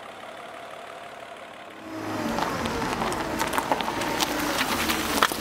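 Mercedes M110 straight-six engine with K-Jetronic fuel injection idling steadily after a hot start, running fine on new fuel injectors. About two seconds in, a louder sound with a low hum, steady tones and many sharp clicks takes over.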